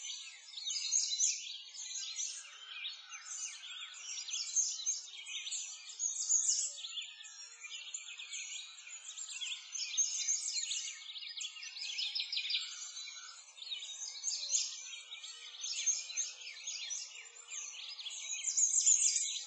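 Songbirds chirping and singing continuously, many short overlapping calls, high-pitched, with no low sounds beneath them.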